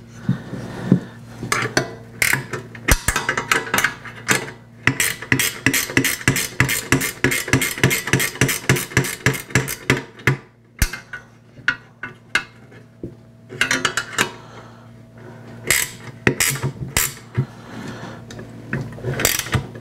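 Hand socket ratchet clicking in quick, even runs as a bolt is turned by hand, with scattered clinks of metal tools and parts between the runs.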